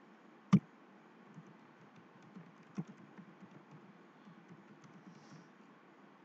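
Typing on a computer keyboard: scattered light keystrokes, with one sharp loud click about half a second in and a smaller one near three seconds.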